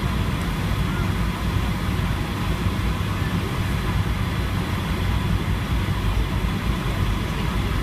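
Airliner turbofan engine heard from inside the cabin at low taxi power: a steady low rumble with a thin, even whine above it.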